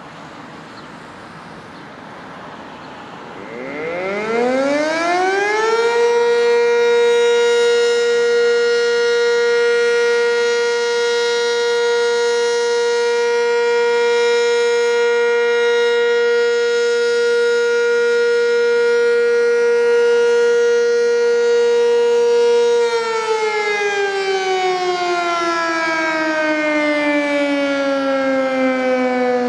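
Sentry 10V electromechanical fire siren sounding a test: it winds up about four seconds in, rising quickly in pitch to a steady, loud single tone held for around seventeen seconds, then winds down with the pitch falling slowly near the end.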